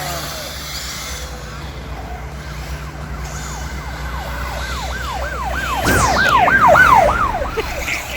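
Emergency vehicle siren yelping in quick rising-and-falling sweeps, about three a second, growing louder to a peak about six seconds in as it passes, then fading. A steady low traffic rumble runs underneath.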